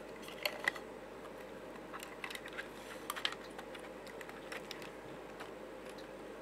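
Irregular light clicks and taps of a 3D-printed plastic case, small screws and a screwdriver being handled, loudest in short clusters about half a second, two and three seconds in.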